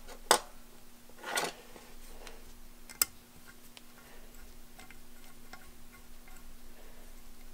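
Small metallic clicks and ticks as a steel cap screw is fitted and turned into a threaded hole in a super spacer's cover plate: a sharp click near the start and another about three seconds in, then a run of small, irregular ticks over a faint steady hum.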